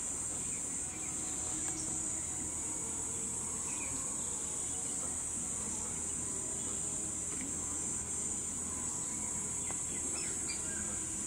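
Insect chorus: a steady, unbroken high-pitched drone over a low background rumble, with a few faint short chirps.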